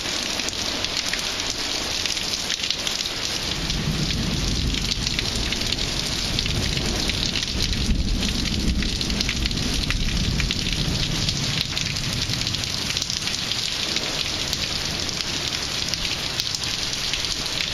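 Heavy rain pouring down steadily, with a low rolling rumble of thunder from about four seconds in until about eleven seconds.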